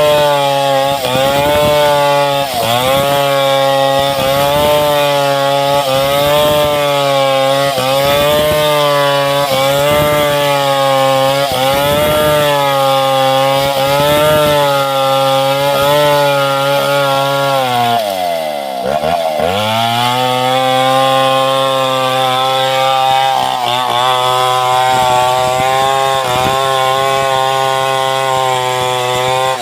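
Chainsaw ripping a timber lengthwise into planks, its engine pitch sagging and recovering about every second and a half as it works under load. A little under two-thirds of the way through, the engine drops sharply and revs back up, then runs steadier.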